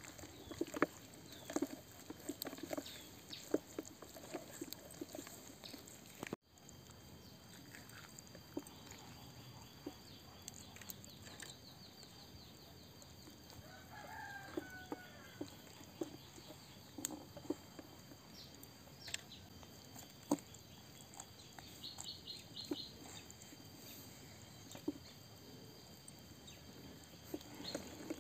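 Faint handling sounds of raw chicken being worked and skewered with bamboo sticks on a wooden board, with scattered light knocks and clicks. About halfway through, a chicken clucks briefly in the background, and short runs of rapid high ticks come twice.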